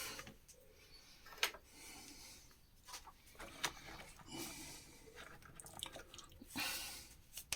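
Faint handling noises from working a small wiring plug into the circuit board of a Makita site radio: a few light plastic clicks and scuffs, with a longer rustle near the end.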